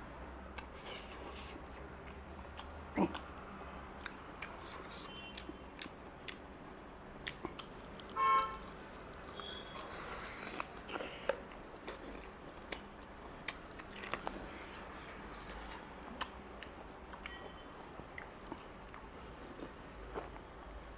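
Close-up eating sounds: chewing and biting food, with scattered small wet clicks and light crunches. A brief pitched tone sounds once, about eight seconds in.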